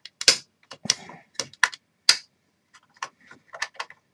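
Irregular sharp clicks and taps, about a dozen in four seconds, from fingers handling a CPU socket tester seated in a motherboard's processor socket.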